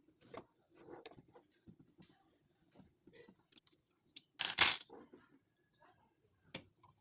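Scattered small clicks and knocks of parts and tools being handled during repair work on a gas water heater, with one louder, brief clattering burst about halfway through.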